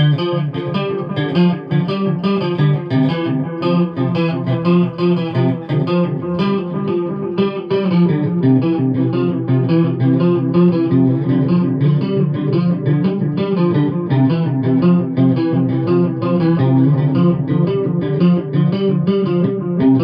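Electric guitar played through a DIY Small Clone-style chorus pedal and a Tube Screamer overdrive into an Orange Micro Dark amp and Marshall cabinet. It is a continuous run of picked notes and chords with no pauses.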